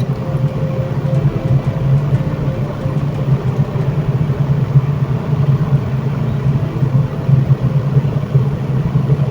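Steady low mechanical hum, like a motor running continuously, with no clear change.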